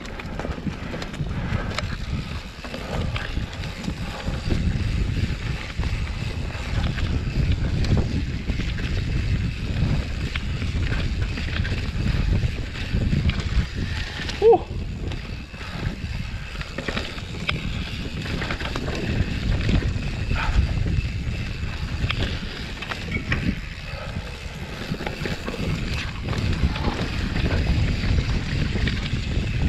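Wind buffeting the microphone and the tyres and frame of a mountain bike rattling and rolling over a loose dirt singletrack at speed, a steady uneven rumble with small clicks. About halfway there is a brief pitched squeak, the loudest moment.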